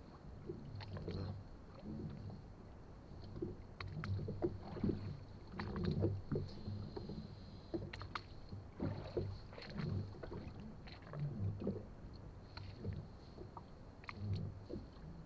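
Water lapping irregularly against an inflatable boat's hull as it drifts, with small clicks from fishing tackle being handled.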